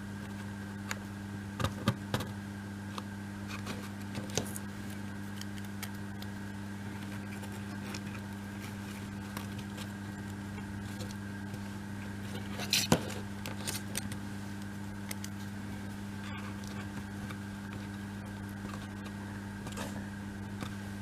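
Laser-cut wooden model pieces being slotted together and handled on a tabletop: scattered light clicks and knocks, a small cluster of them about thirteen seconds in, over a steady low hum.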